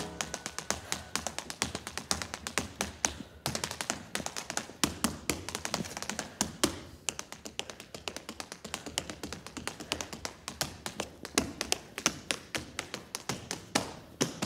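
Tap shoes striking a stage floor in a fast, rhythmic run of taps, unaccompanied by music.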